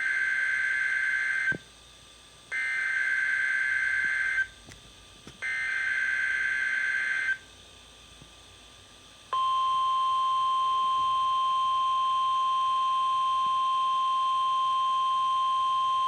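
NOAA Weather Radio weekly test of the SAME and tone alert systems: three Specific Area Message Encoding header data bursts, each a harsh two-tone warble about two seconds long with roughly a second between them. After a two-second pause, about nine seconds in, the steady 1050 Hz warning alarm tone comes on and holds.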